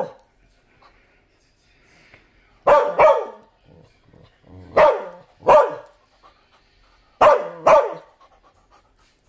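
A dog barking in three pairs of short, pitched barks, about two seconds apart.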